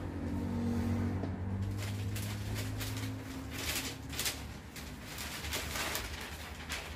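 A low steady hum for about the first three seconds, then a clamshell heat press is opened and the sublimation paper and pressed shirt are pulled off it: short clicks and paper and fabric rustling.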